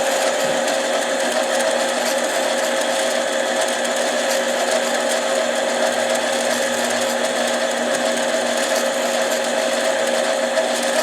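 Small bench lathe running steadily, with a constant motor hum and whine, as it spins a chainsaw piston for deburring with sandpaper.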